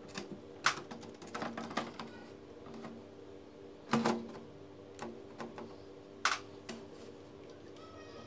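Hard plastic clicking and knocking as the RM1-7274 transfer belt assembly of an HP colour LaserJet is handled and pushed into place in the printer frame. The taps are scattered, with two louder knocks about four and six seconds in, over a faint steady hum.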